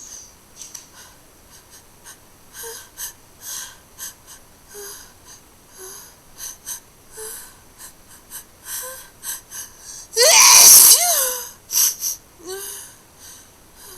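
A person takes a run of short breaths building up to a sneeze, then gives one loud, hard, wet sneeze about ten seconds in, followed by a few short breaths.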